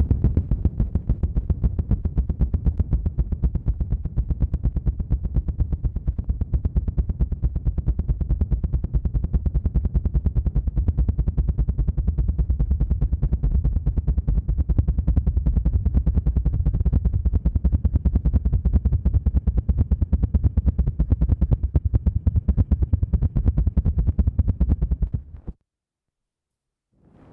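ASMR "helicopter" trigger: a rapid, even, low fluttering throb worked right against the microphone, like close helicopter blades. It cuts off suddenly about 25 seconds in.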